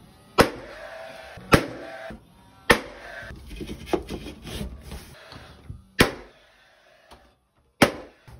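Cordless brad nailer firing five times, driving nails through bed moulding into the ceiling and wall: three sharp snaps about a second apart, then two more after a pause.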